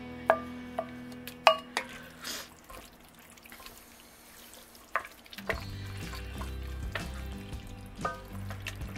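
A wooden spoon stirring shredded chicken into a thick cheese sauce in an enameled cast-iron pot, with a few sharp ringing knocks against the pot in the first couple of seconds and another about five seconds in. Background music plays underneath and gets fuller in the second half.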